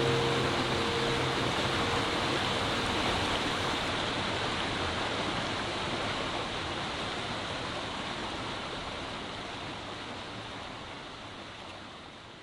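Steady rushing noise with no distinct events, fading out slowly toward the end. The last notes of background music die away in the first second.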